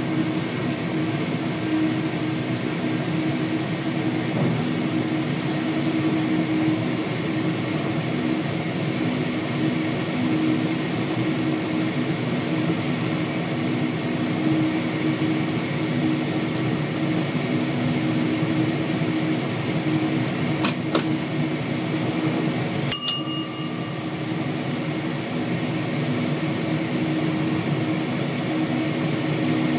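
NMBS AM62 classic electric multiple unit running at speed, heard from inside the driver's cab: a steady hum over the rumble of the wheels on the rails. A couple of light clicks come about two-thirds of the way through, then a sharp click, after which the running sound eases slightly.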